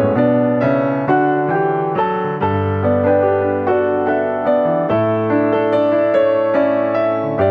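Background piano music: a steady run of struck notes over held bass notes.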